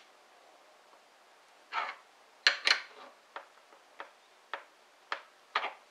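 Hands tightening the small lock nut on top of a bullet-seating die in a reloading press. A short scrape comes a couple of seconds in, then a string of sharp metallic clicks and taps roughly half a second apart.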